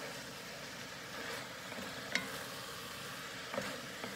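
Vegetable and chicken stir-fry sizzling in a hot cast-iron skillet while being stirred with a wooden spatula, with a few sharp clicks of the spatula against the pan.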